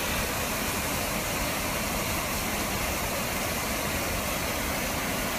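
Small waterfall cascading down a rocky creek channel: a steady, even rush of water. It is running full from the rains of the last couple of days.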